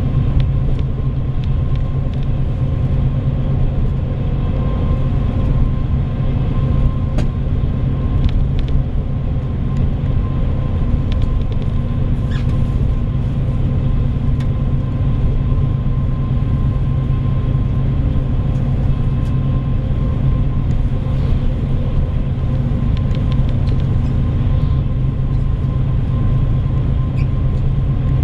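Inside a bus cruising along a road: a steady low drone from the engine and tyres, with a faint steady high tone above it.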